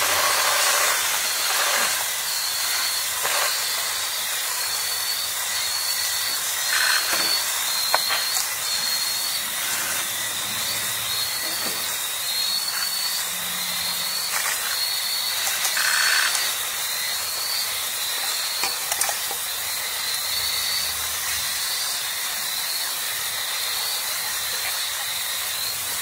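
Steady hiss of forest ambience. Over it, a short high note repeats about one and a half times a second throughout.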